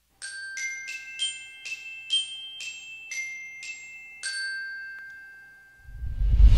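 Logo-intro jingle on bright mallet percussion like a glockenspiel: about ten struck, ringing notes in a quick melody, the last one ringing out. Near the end a deep whoosh swells up and becomes the loudest sound.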